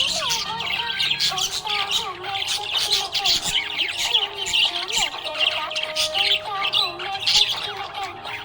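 A flock of budgerigars chirping and squawking continuously, many short overlapping chirps with warbling gliding notes beneath.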